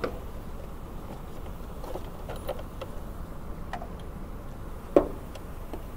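A few light clicks and knocks of hands handling the plastic engine air filter box, with one sharper knock about five seconds in, over steady background noise.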